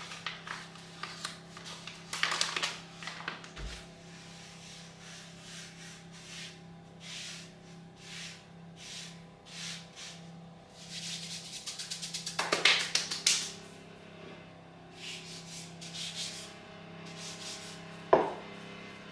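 Rolling pin rolling out dough on a board: a run of repeated rubbing strokes, with a louder knock near the end.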